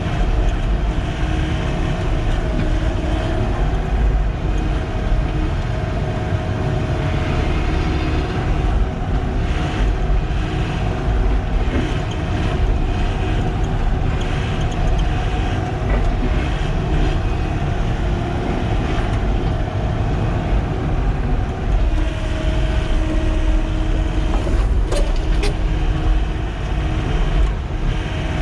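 Heavy diesel machinery running steadily, with a few sharp clicks near the end.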